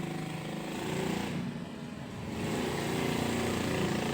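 Motorcycle engines running in street traffic, a steady engine drone with a brief dip about a second and a half in.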